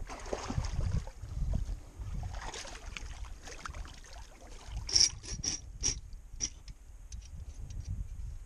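A steel 330 Conibear body-grip trap being handled and set in shallow water: low, uneven sloshing of water, with a quick run of sharp metallic clicks from the trap's springs and catches about five seconds in.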